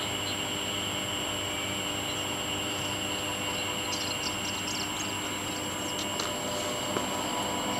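Steady open-air ambience: an even hiss under a steady high-pitched drone, with a few short high chirps about four to six seconds in.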